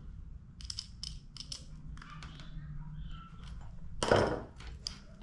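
Small metal clicks and wire rustling as pliers work the nut and antenna wires on a binding post, with a louder scrape of handling about four seconds in.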